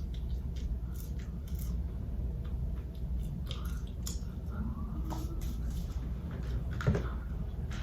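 Close-up mouth sounds of someone chewing a fried chicken sandwich: scattered wet clicks and smacks over a steady low hum, with one louder smack or gulp about seven seconds in.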